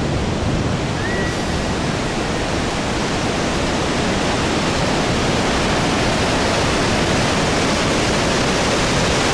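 Augrabies Falls on the Orange River in heavy flow, about 2800 cubic metres a second: a loud, steady rush of falling water. A short faint whistle sounds once about a second in.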